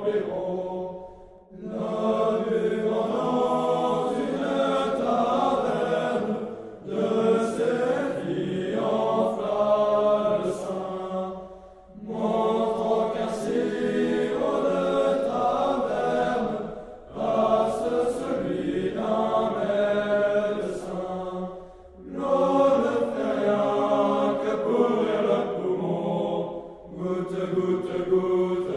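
A group of voices singing a French drinking song (chanson à boire) together, in phrases of about five seconds with a short pause between each.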